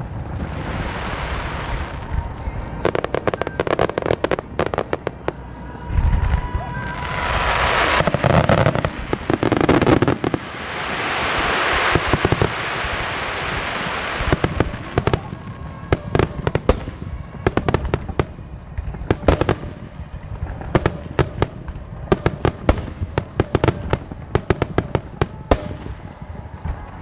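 Aerial fireworks shells bursting with deep booms, then long runs of rapid crackling and popping. There is a rushing hiss around the middle.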